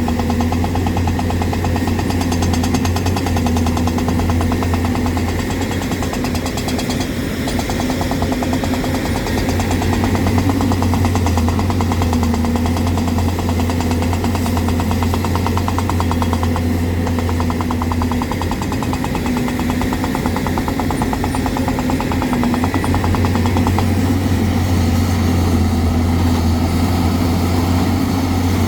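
Hyundai excavator's diesel engine running steadily with a fast, even rumble, its low note easing slightly about two-thirds of the way through.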